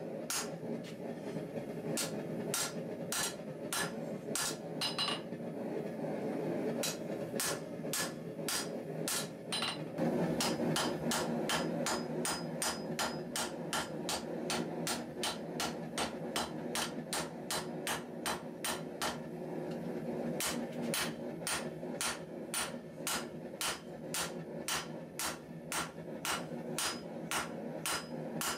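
Hand hammer striking red-hot steel on an anvil in a steady rhythm of about two blows a second, forging out a large knife blade. A steady low rushing noise runs underneath and grows louder about ten seconds in.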